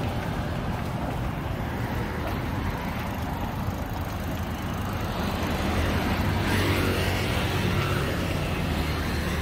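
Street traffic: engines running steadily, with a vehicle passing close and louder about six to eight seconds in.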